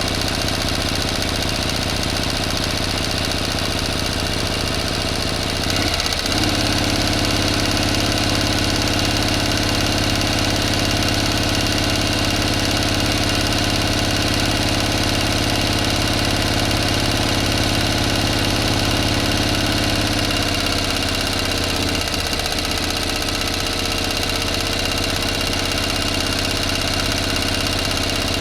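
A motor running steadily, a constant mechanical hum with a fixed pitch. Its tone changes briefly about six seconds in, and again a little past twenty seconds, without stopping.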